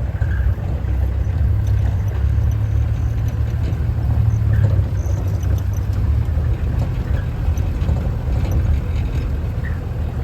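Game-drive vehicle driving along, a steady low engine and road rumble.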